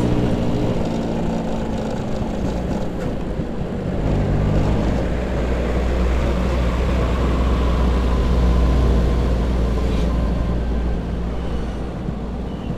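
Vespa PS 150 two-stroke scooter engine running while riding, with wind and road noise. The engine sound gets louder about four seconds in and stays up for several seconds before easing near the end.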